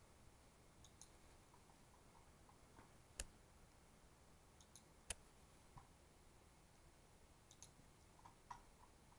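Computer mouse clicks: a few scattered, short, sharp clicks, the two loudest about three and five seconds in, over a faint, quiet room background.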